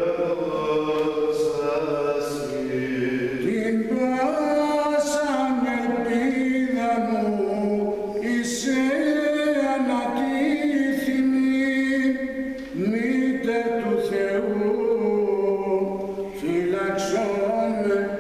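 Male chanters singing Greek Orthodox Byzantine chant unaccompanied, in long held notes that step up and down in pitch.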